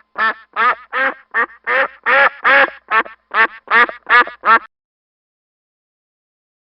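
Domestic duck quacking, a quick series of about a dozen short quacks.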